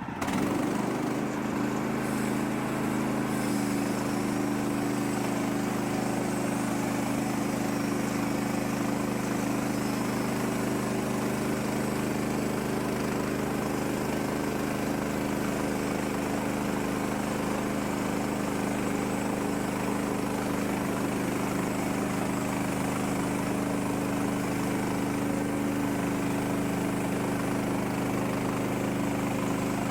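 Woodland Mills HM130 Max sawmill's gas engine running steadily at a constant pitch, driving the band saw blade through a log.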